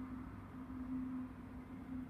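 The bus's generator engine running steadily: a low hum whose tone wavers, over a low rumble.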